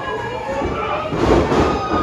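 Crowd of voices shouting and cheering, several pitched calls overlapping.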